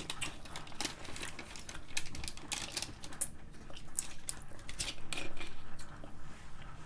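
A person chewing pickle slices close to the microphone, giving irregular crunchy, wet clicks.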